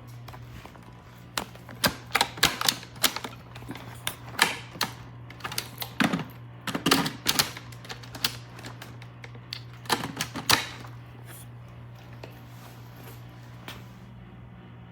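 Tineco Floor One S5 wet-dry vacuum running with a steady low hum, with clusters of sharp, irregular clicks and rattles over it: debris being picked up by the vacuum. The clicks thin out over the last few seconds.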